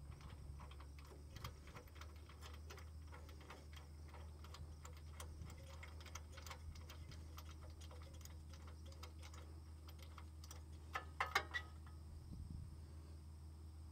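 Socket wrench ratchet clicking in quick, irregular runs as a spark plug is backed out of a V-twin generator engine, with a few louder clacks about eleven seconds in as the plug comes free in the socket.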